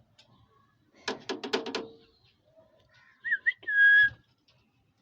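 Pet talking parrot calling: a quick run of about five clipped chattering sounds, then two short rising chirps and one loud steady whistle near the end.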